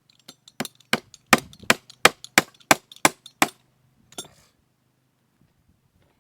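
Hammer strikes, about nine sharp blows at a steady pace of roughly three a second, then a single lighter knock.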